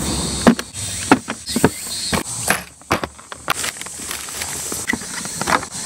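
Plastic tackle box being handled and opened, its latch and lid clicking, then footsteps through brush and stones: a string of irregular sharp clicks and knocks over rustling.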